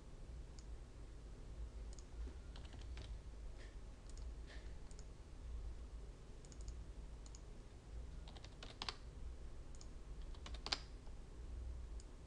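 Scattered computer mouse clicks and keystrokes, with two sharper clicks about nine and eleven seconds in, over a faint steady low hum.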